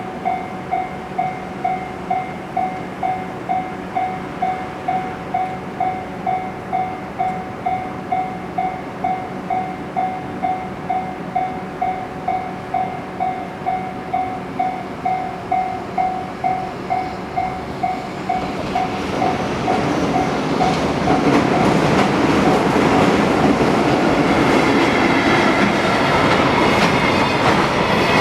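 Level-crossing warning bell ringing at about two strikes a second, then a JR Freight train hauled by an EF65 electric locomotive passing over the crossing. The train noise builds up about two-thirds of the way in, with wheels clattering over the rail joints, and drowns out the bell.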